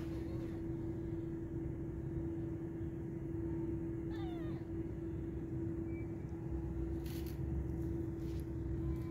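A cat gives a short, falling meow about four seconds in, over a steady hum.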